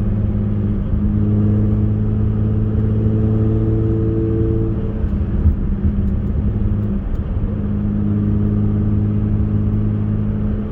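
Turbocharged 2JZ-GE straight-six of a Lexus IS300 running as the car is driven: a steady engine drone whose tone shifts briefly around the middle before settling again.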